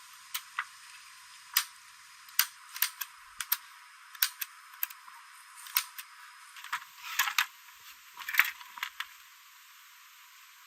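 A series of irregular sharp clicks and taps of hard objects being handled, about twenty over nine seconds, stopping near the end.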